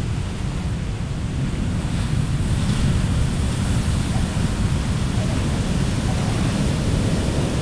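Heavy storm surf breaking and washing up the beach in a steady rush, the swell from a hurricane passing offshore, with wind buffeting the microphone in a low rumble.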